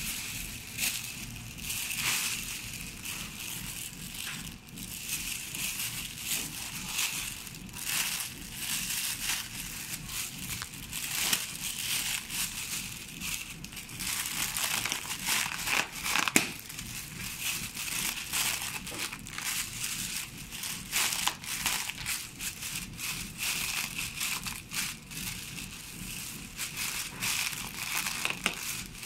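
Thin clear plastic air-pillow film crumpled and handled by hand: a continuous, irregular crinkling and crackling.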